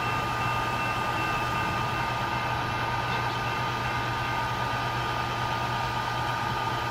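A steady idling engine hum with a constant high-pitched whine over it, unchanging throughout.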